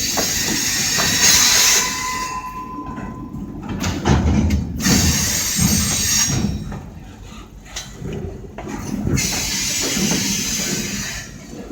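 Freight train of flatcars loaded with pipe rolling past on the rails, its noise swelling and dipping as the cars go by.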